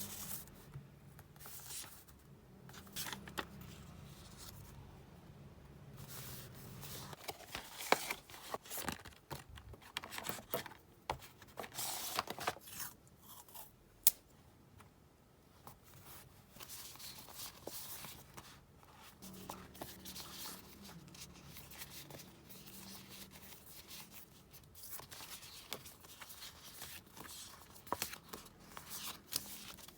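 Paper and masking tape being handled for diary decorating: irregular short tearing, rustling and scraping sounds, with a sharp click about eight seconds in and another about fourteen seconds in.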